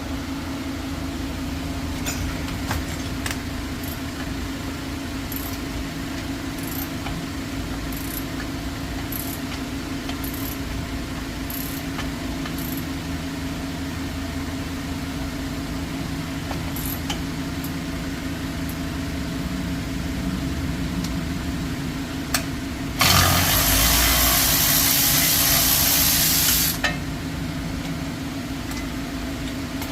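A steady engine-like hum runs under faint scattered metal clinks of hand tools. Near the end comes a loud, steady hiss lasting nearly four seconds, which then cuts off.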